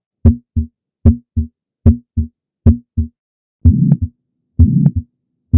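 Recorded heartbeat at about 75 beats a minute. First come four clean paired first and second heart sounds (S1, S2) with silence between. From about three and a half seconds in, each beat carries a noisy murmur filling the gap after it: a heart murmur, the sound of blood flowing fast and turbulently.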